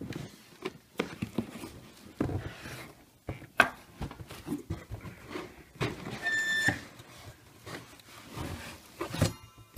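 Cardboard shipping box and plastic-wrapped inverter being handled as the heavy unit is lifted out: a run of irregular knocks, scrapes and rustles, with a short squeak a little past the middle.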